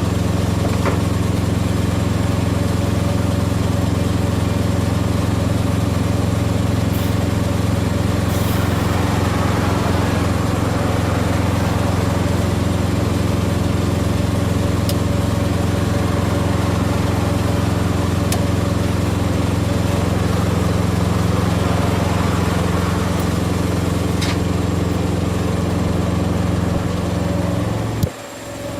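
An engine idling steadily at constant speed, breaking off sharply near the end.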